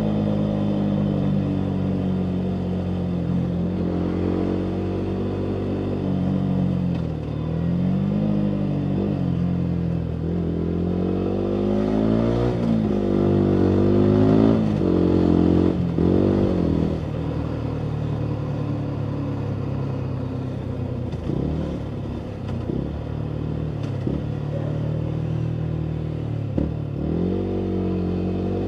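Yamaha MT-125's single-cylinder four-stroke engine through a full Akrapovic exhaust, revving up and down as the bike accelerates through the gears and rolls off. The pitch climbs steeply in the middle, and a few short sharp cracks come in the second half as the revs drop.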